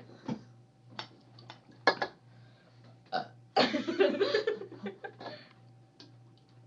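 Burping: a few short burp sounds, then one longer, pitched burp about three and a half seconds in, lasting about a second.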